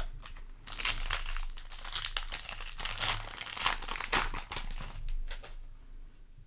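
Foil booster-pack wrapper being crinkled and torn open by hand, a dense crackle that starts about a second in and dies away near the end.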